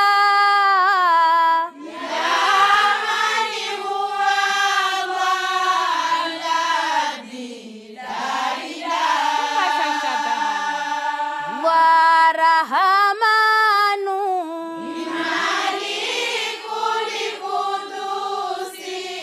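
A women's déba choir singing an Islamic devotional chant in Arabic, in unison, in long held phrases with brief pauses between them.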